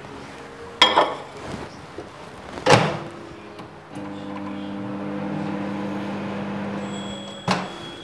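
Countertop microwave oven: a bowl set down inside and the door shut with two sharp knocks, then the oven runs with a steady hum for a few seconds, heating milk for paalkova, before a sharp click of the door latch and a high beep near the end.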